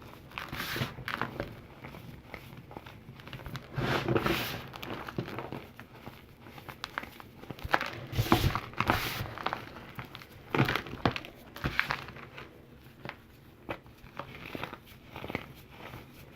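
Blocks of calcium carbonate being crushed and crumbled: a run of irregular crunches and crackles, with louder crunches about four, eight to nine, and eleven seconds in.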